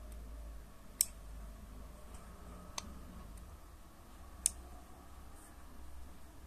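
Button clicks on an Mlife M120S box mod: three sharp clicks, a little under two seconds apart, as it is fired and answers each press with an atomizer short error.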